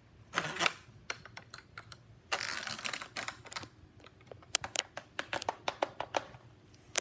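Hard plastic toy playset parts being handled: two bursts of scraping and rattling, then a quick run of sharp plastic clicks and clacks in the second half.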